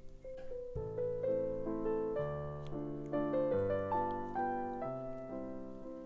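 Background piano music: a melody in single notes over low bass notes that change about every second.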